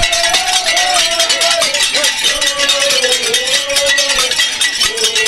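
Crowd singing a chant, the melody wavering on long held notes, over a fast, dense clatter of percussion.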